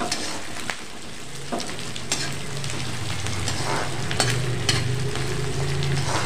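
Chopped onion and ginger sizzling in hot oil in a steel kadhai while a steel ladle stirs them, scraping and knocking against the pan every second or so. A low steady hum joins in about a second in.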